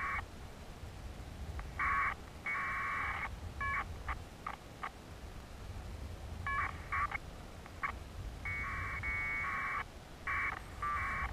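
Irregular bursts of electronic data tones, each from a brief blip to about a second long, from the balloon payload's tracking transmitter as picked up on board, over a steady low rumble.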